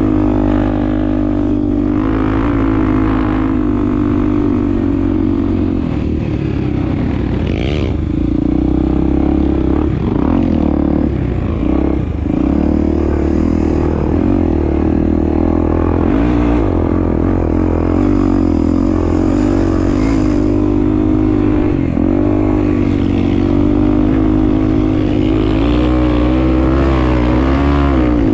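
Honda Tornado 250 cc single-cylinder four-stroke motorcycle engine running while ridden off-road, the revs rising and falling with the throttle.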